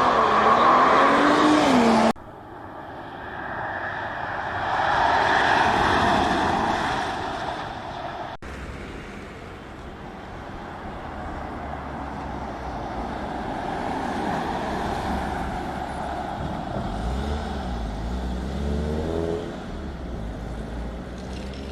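Kia EV9 electric SUV passing at speed, heard as tyre and wind noise swelling and fading, with no engine note of its own. It comes in several cut-together clips, with abrupt changes about two seconds in and again about eight seconds in, and a combustion engine rising in pitch near the end.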